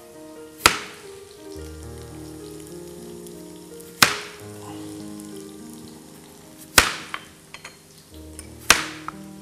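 Kitchen knife cutting through peeled raw taro and striking the cutting board: four sharp knocks a few seconds apart, over background music.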